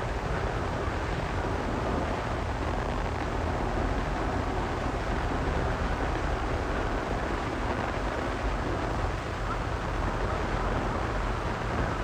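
Electric arc welding on steel, the arc crackling and sputtering steadily without a break.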